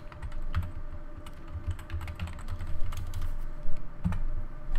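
Typing on a computer keyboard: an irregular run of key clicks.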